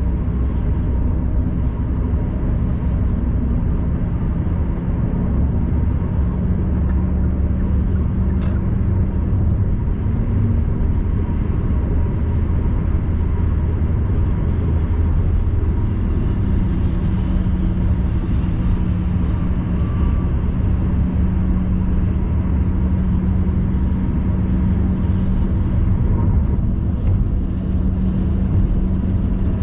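Car cabin noise at expressway speed: a steady low rumble of tyres and engine with a constant drone, and one small click about eight seconds in.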